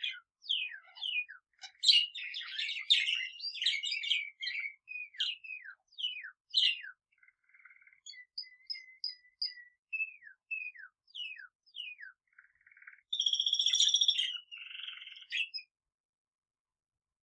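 A pet budgerigar and a male canary singing together: quick chirps and a long run of short, repeated downward-slurred whistles, with a loud buzzing trill about thirteen seconds in. The song stops shortly before the end.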